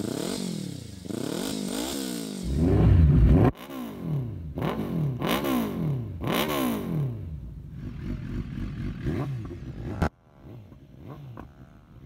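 Sport motorcycles with aftermarket slip-on exhausts revved at a standstill, one bike after another: repeated throttle blips whose pitch sweeps up and falls back, with a loud deep blast about three seconds in. The sound cuts abruptly to a different bike about three and a half seconds in and again near ten seconds, and the last bike is quieter.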